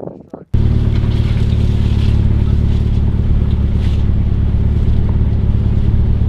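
A motor vehicle driving over a rough, muddy track: a steady, loud low rumble of engine and tyres on bumpy ground. It starts suddenly about half a second in.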